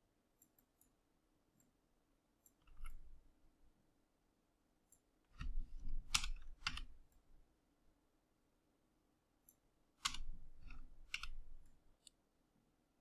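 Computer mouse and keyboard clicks in a few short clusters, about three seconds, six seconds and ten seconds in, with light knocks on the desk under the louder clusters.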